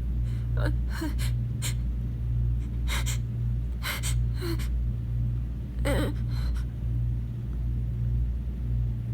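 A woman's short gasping breaths as she holds back a sneeze: a string of quick, uneven catches of breath, a few with a small voiced catch, over a steady low hum.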